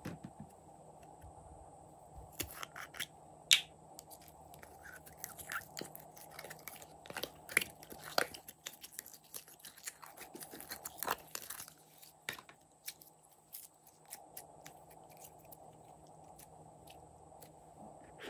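A soft plastic squeeze bottle being squeezed, with irregular crackles and small squelches as thick pink paste is piped out into a rose shape. The sharpest crack comes about three and a half seconds in.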